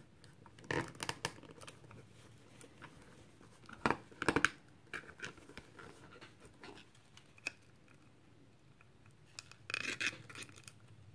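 Small hard-plastic parts of an action figure clicking and rubbing as they are handled and fitted together: scattered light clicks, two sharper ones about four seconds in, and a short scraping rustle near the end.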